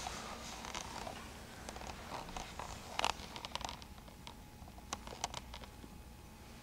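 Scattered rustling and small sharp clicks from someone moving about with a handheld camera in a small, quiet room: one sharp click at the start, a cluster about three seconds in and a couple more near five seconds, over a low steady hum.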